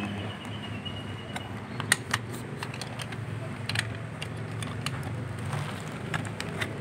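Scattered clicks and light mechanical knocks, the sharpest about two seconds in, over a steady low hum.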